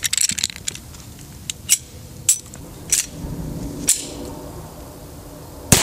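Sharp metallic clicks of a Glock pistol being handled and reassembled during a barrel swap, a quick cluster at first and then single clicks. Near the end a single very loud pistol shot from a Glock 31C in .357 SIG with its non-ported factory barrel, ringing out with a long echo.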